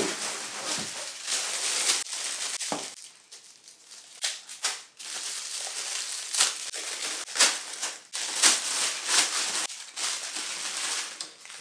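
Plastic packaging bag crinkling and rustling as a monitor stand part is unwrapped by hand, with irregular sharper crackles.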